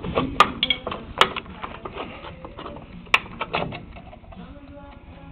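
Sharp metallic clicks and clinks of hand tools and brake return springs being worked off the rear drum brake shoes of a 1972 Chevy K-20 pickup. They come thickest in the first second or so, with another loud click about three seconds in, and thin out near the end.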